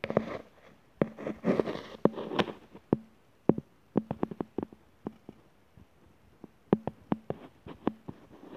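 Handling noise: a string of irregular clicks and taps, with denser rustling over the first two and a half seconds and scattered clicks after that, over a faint steady low hum.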